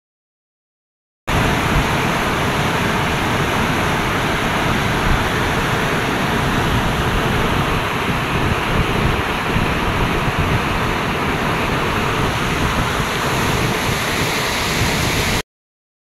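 River rapids and waterfall rushing over rock ledges: a steady, full rush of white water that starts about a second in and cuts off suddenly near the end.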